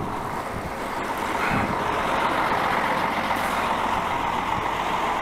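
A heavy vehicle passing close by, its engine and tyre noise on the road surface steady and growing louder about a second and a half in.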